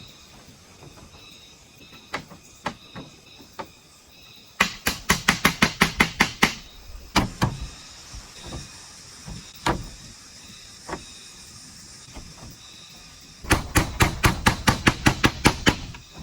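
Hand tool working bamboo in two runs of fast, even strokes, about eight a second and about two seconds each, with a few single knocks between.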